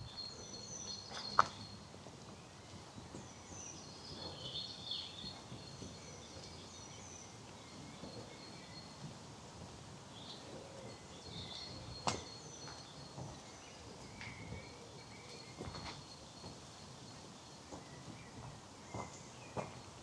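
Several small birds singing in short chirps and whistled phrases over a steady outdoor hiss, with a few sharp clicks or snaps, the loudest about a second in and again about twelve seconds in.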